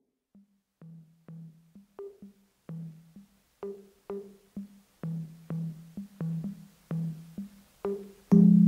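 Background music: a rhythm of short, pitched percussion strikes, about two a second, growing louder, then a loud sustained low chord comes in near the end.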